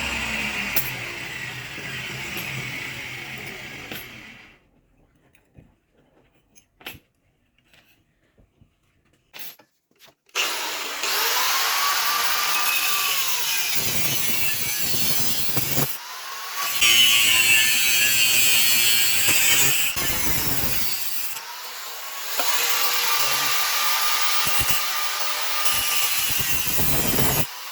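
A power tool working wood or metal in several spells: its motor speeds up at the start of each spell and winds down at the end, with a quiet stretch of a few clicks between the first and second spells.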